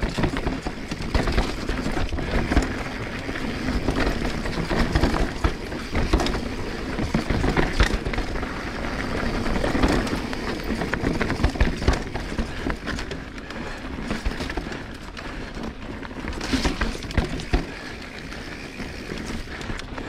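A 2022 Transition Sentinel full-suspension mountain bike descending a rough trail: the tyres roll over dirt and rock with a steady low rumble and constant rattling and knocking from the bike.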